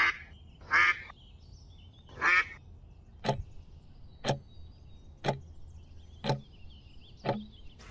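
Edited-in comedy sound effects: three loud duck quacks in the first two and a half seconds, then a clock ticking once a second, five ticks.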